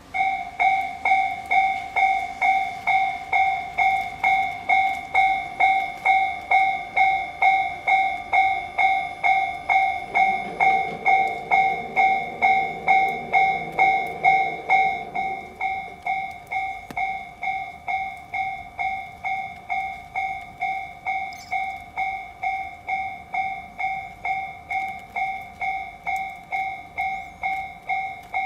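Japanese level-crossing warning bell starting up and then clanging on at a steady, rapid beat, signalling that a train is approaching. A low rumble passes under it between about ten and sixteen seconds in.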